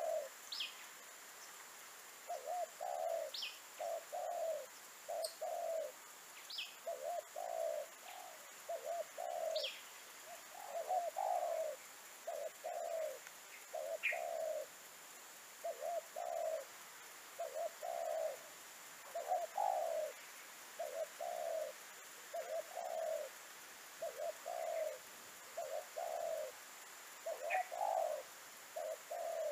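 Spotted dove cooing: low coos in short phrases of two or three notes, repeated phrase after phrase with brief gaps. A few short high chirps from other small birds come in near the start.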